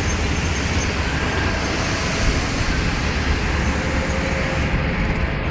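Steady, unbroken rumble of heavy vehicle engines and road traffic.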